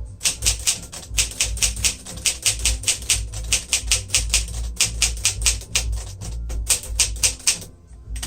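1957 Smith-Corona Silent-Super manual typewriter being typed on steadily: a rapid run of key strikes, about five or six a second, with a short pause near the end.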